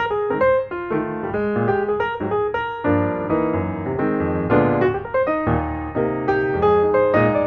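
Background piano music: a steady stream of notes over chords.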